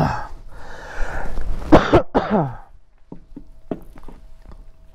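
A man coughs and clears his throat, followed by a few light clicks and taps in the second half.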